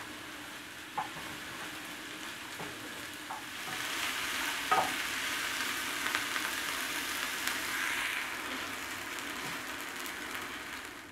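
Diced red onions sizzling in a frying pan as they sauté, stirred with a wooden spoon that knocks against the pan a few times. The sizzle grows louder a few seconds in.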